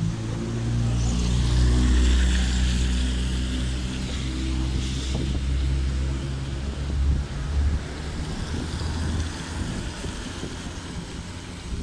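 A motor vehicle going by on a wet road: a low engine drone with the hiss of tyres on wet asphalt, loudest about two seconds in, the engine fading out after about seven seconds. Wind buffets the microphone.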